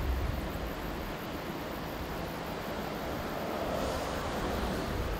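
Steady rushing of a flowing river, with a low rumble of wind on the microphone in the first second.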